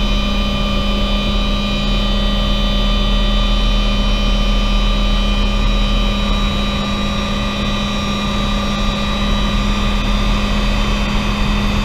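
Helicopter in flight heard from inside the cockpit: a steady drone of turbine engine and rotor with a constant low hum and higher whining tones.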